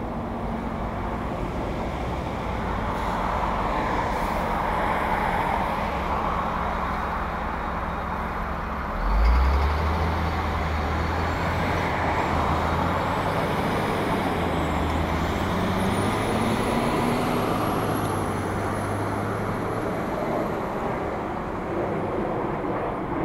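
Road traffic passing through an intersection: cars driving by with steady tyre and engine noise. About nine seconds in, a vehicle's engine drone starts suddenly and loudly close by and carries on for roughly ten seconds.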